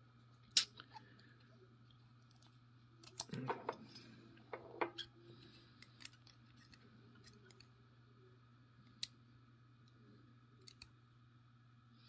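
Light, scattered metallic clicks and taps from an ASSA 600 pin tumbler lock being gutted, its pins and springs taken out one by one. The sharpest click comes about half a second in and a cluster follows around three to five seconds, over a faint steady hum.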